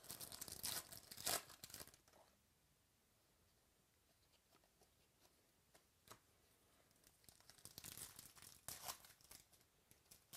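Foil wrapper of a 2017 Topps Gold Label baseball card pack being torn open and crinkled. This comes in two bouts: one at the start lasting about two seconds, and another from a little past the middle to near the end, with faint handling between.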